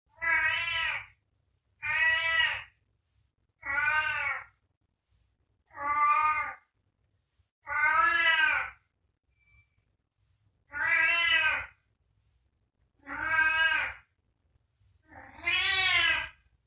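Domestic cat meowing eight times, each meow under a second long and about two seconds apart, its pitch rising and then falling; the last meow is longer.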